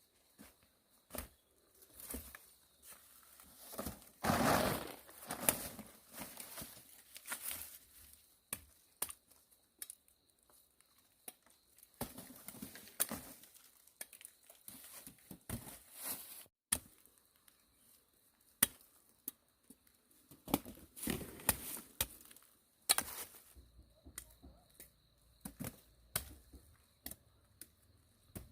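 Irregular rustling and tearing with many scattered sharp clicks and knocks, as of leaves and stems being handled and pulled, with louder bursts about four seconds in and again around twenty-one seconds.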